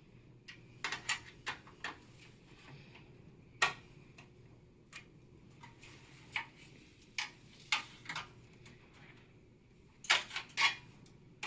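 Irregular clicks and taps of hardware being handled and fitted as a 240 mm AIO radiator is mounted to the front of a PC case, with a cluster of louder knocks near the end.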